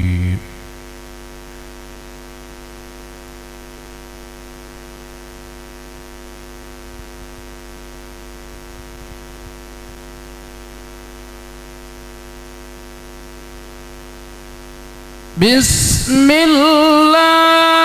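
Steady electrical mains hum with a stack of even overtones. Near the end a man's melodic Quran recitation over the microphone starts loudly, in long wavering held notes.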